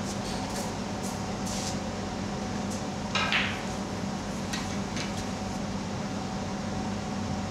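Steady low hum of room noise with a few faint light clicks, and a brief clattering rattle about three seconds in, the loudest moment.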